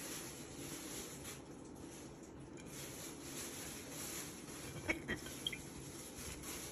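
Faint room hiss with a few soft clicks about five seconds in, from a glass wine bottle being handled and turned in the hand.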